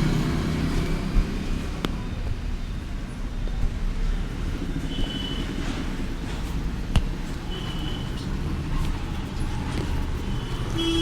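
Steady road-traffic rumble, with two short sharp clicks a few seconds apart.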